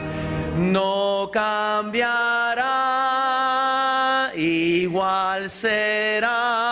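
Congregation singing a slow Spanish hymn chorus, about eight held notes stepping one to the next, with one longer note about halfway through.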